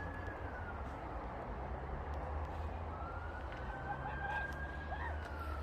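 Emergency-vehicle siren wailing, its pitch falling slowly, then rising again a few seconds in, over a steady low rumble.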